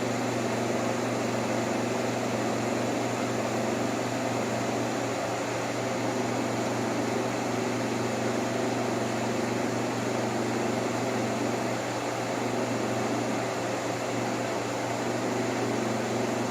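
1958 Carrier 4,500 BTU window air conditioner running in cooling mode: the shaded-pole blower motor pushing air with a steady rushing noise over a constant low hum.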